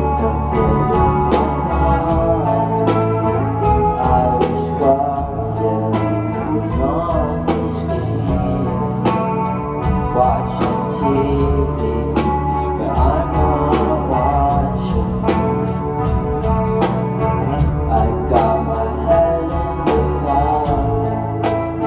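Live band music at a concert: a steady drum beat under keyboard and guitar, with some singing.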